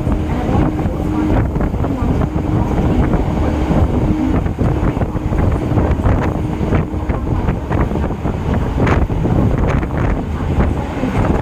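Running noise of an EMU electric local train heard from on board: a steady low rumble of the train in motion with wind buffeting the microphone. A faint steady hum sounds for the first few seconds, and sharp clicks come scattered through the second half.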